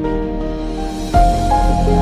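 Soft instrumental background music with held notes; a louder new chord comes in about a second in.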